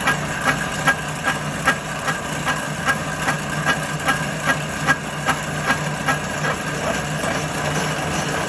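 A motor-driven machine running steadily with a low hum and a regular tick about two and a half times a second.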